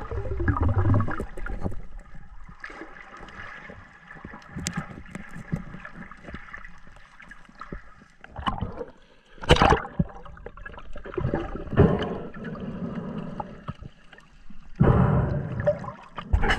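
Water gurgling and sloshing, heard underwater, with several sharp knocks, the loudest about nine and a half seconds in and another burst of loud handling noise near the end.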